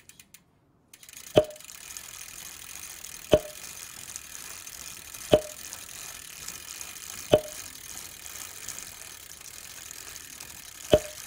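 Sound-design mechanical clicks for an animated gear logo: four sharp clicks about two seconds apart and a fifth near the end, each with a short ring, over a faint steady hiss.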